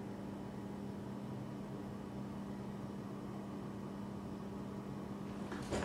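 Room tone: a steady low hum over faint hiss, with a short click or two near the end.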